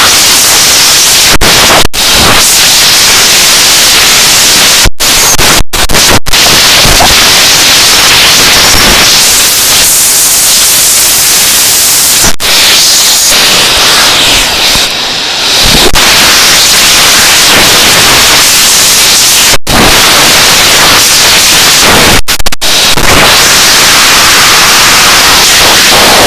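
Vacuum cleaner airflow rushing straight over a microphone pushed into the hose or nozzle: a steady, extremely loud hiss at full level. It cuts out for a split second several times and dips briefly about fifteen seconds in.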